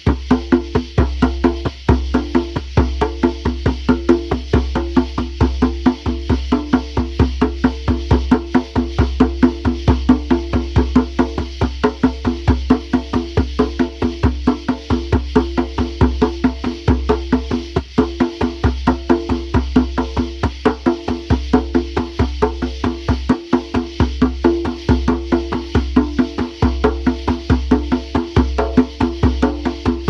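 Drum played by hand in quick, even strokes, several a second, keeping a steady beat.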